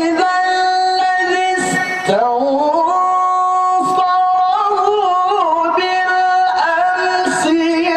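A male qari reciting the Qur'an in the melodic tilawah style, holding long drawn-out notes with wavering ornaments and a shift in pitch about two seconds in.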